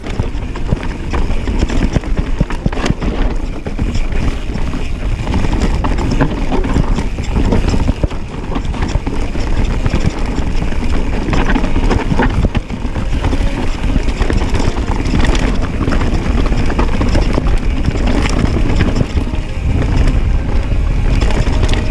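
Wind buffeting an action camera's microphone as a mountain bike descends fast, mixed with tyres rolling over dirt and rocks and the bike rattling over the bumps in many short knocks.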